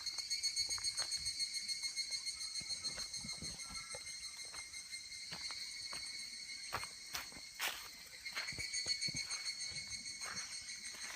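A steady, finely pulsing chorus of insects trilling. Short clicks and knocks come irregularly throughout over it.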